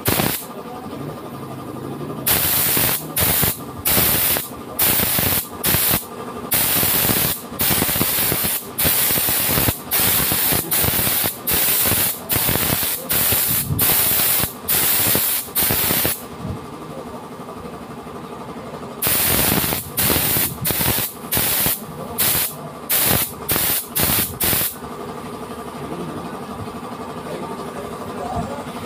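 Kawasaki Ninja 250 engine idling steadily, overlaid by loud short hissing bursts of unclear origin, about one a second. The bursts pause for a few seconds past the middle, resume, then stop a few seconds before the end, leaving only the idle.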